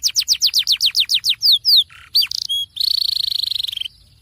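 Canary singing: a fast run of descending whistled notes, about six a second, then a few separate chirps, then a buzzing rattle trill that stops shortly before the end.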